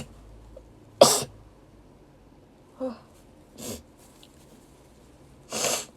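A young woman sneezing: one sharp, loud sneeze about a second in, then softer breathy sounds and another loud burst of breath near the end.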